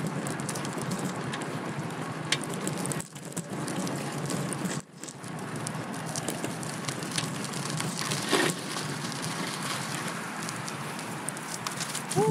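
Steady rushing noise of a fixed-gear bicycle ride: wind over the camera microphone with tyre and road noise. It briefly drops out twice a few seconds in.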